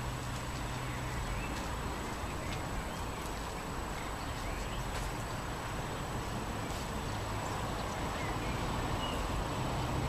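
Outdoor park ambience: a steady hush of wind, with a few short, faint bird chirps and scattered faint clicks.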